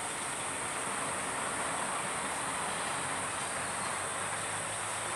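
Mantled howler monkeys calling as a continuous rough, rumbling chorus, over a steady high-pitched insect drone.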